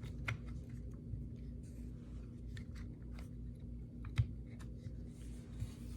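Scattered light clicks and taps from the plastic housing of a DeWalt DCF887 impact driver being handled and worked into place around its internals, over a steady low hum.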